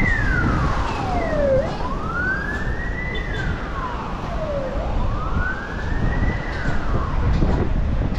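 Emergency vehicle siren in a slow wail, its pitch rising and then falling in long sweeps that repeat about every three seconds. Under it is a steady low rumble of wind on the microphone.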